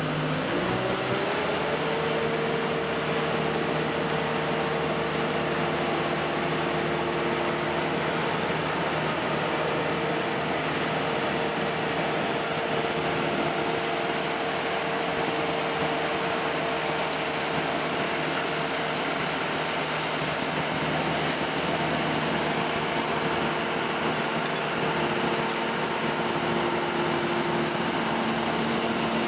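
Boat travel lift running as it carries a boat in its slings: a steady machine hum with a whine that rises in pitch over the first couple of seconds and then holds.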